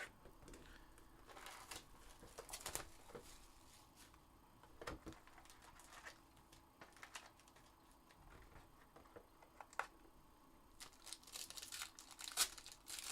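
Faint crinkling and tearing of packaging as a sealed Panini Spectra football hobby box is opened: plastic wrap rustling in short bursts, with a few sharp clicks and tears.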